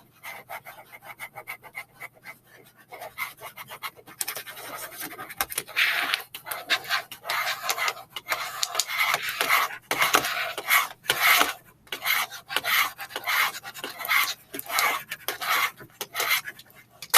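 A hard, flat edge scraped back and forth over vinyl transfer tape stuck to a wooden board, pressing the decal down and smoothing out bubbles. It starts as light rubbing, then becomes firmer scraping strokes about two a second from around six seconds in.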